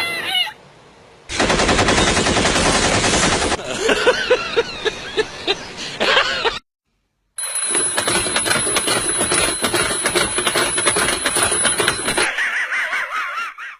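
An alarm going off loud with a rapid rattling ring like machine-gun fire. It starts about a second in, stops briefly about halfway, then starts again with a steady high ring over the rattle and stops near the end.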